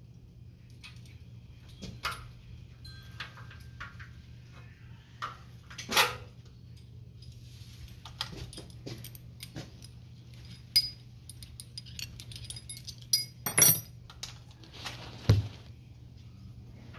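Metal hand tools, Allen keys, clinking and rattling as they are picked through and used on the motorcycle, with scattered sharp clicks and knocks, the loudest about six seconds in and again between thirteen and fifteen seconds. A steady low hum runs underneath.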